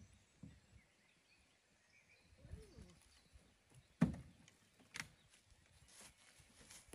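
A small rowing boat being heaved up onto its edge off a wooden pallet: faint shuffling bumps, then a sharp knock about four seconds in and a smaller one a second later as the hull and pallet boards knock together.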